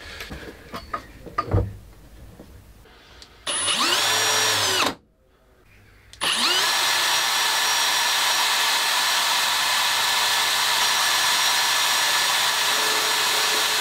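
Cordless drill spinning the input of a homemade oil-filled fluid coupling: after a knock of handling, it spins up briefly about three and a half seconds in and stops, then from about six seconds in spins up again and runs steadily at speed.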